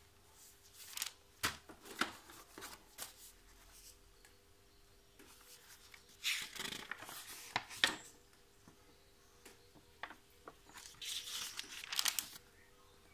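Paper instruction leaflets being handled, flipped and unfolded, rustling and crinkling in three spells: around one to three seconds in, from about six to eight seconds, and again from about eleven to twelve and a half seconds.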